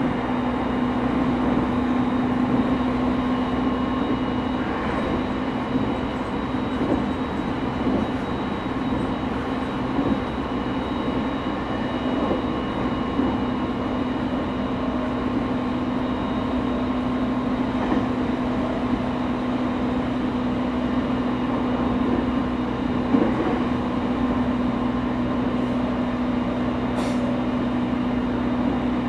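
Running noise inside a JR 209-0 series electric train, motor car MoHa 209-135, an unrenewed car still with its original equipment: a steady hum of motors and wheels with a few knocks from the track, one sharper near the end.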